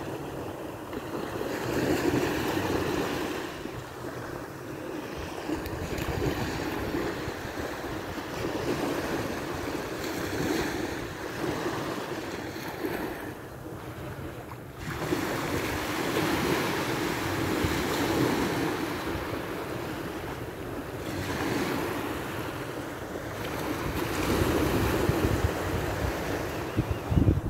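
Small waves breaking and washing up the sand at the shoreline, swelling and fading every few seconds, with wind buffeting the microphone.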